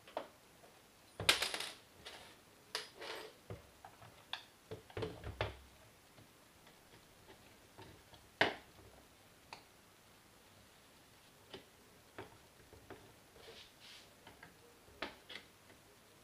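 Scattered clicks and knocks of the ASG Scorpion EVO airsoft gun's parts being handled and taken apart, irregular, with the loudest about a second in and again at about eight seconds.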